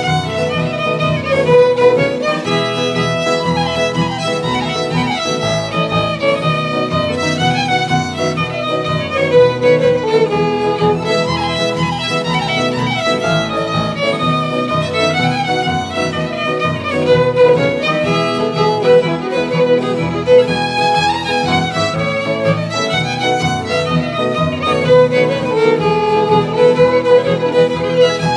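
Fiddle music: a bowed fiddle melody played continuously over a steady low accompaniment.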